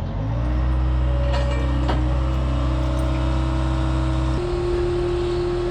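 John Deere 7810 tractor's diesel engine speeding up at the start and holding a steady note, which changes about four seconds in.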